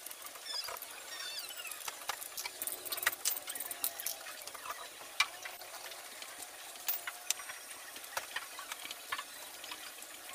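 Scattered small clicks, taps and rubbing from hands, a tool and a rag working over an air compressor's electric motor and its plastic cooling fan, with a few brief high squeaks about a second in.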